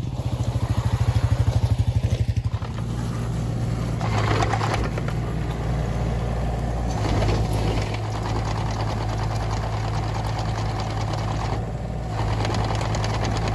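Engine of a small vehicle running on ice. It pulses strongly for the first couple of seconds, then runs steadily with slight changes in load.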